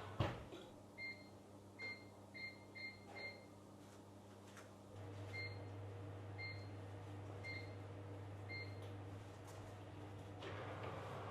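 Electronic keypad beeps as buttons are pressed on an appliance, five quick beeps. About five seconds in, a low steady hum starts as the appliance begins to run, with a single beep roughly once a second for a few seconds.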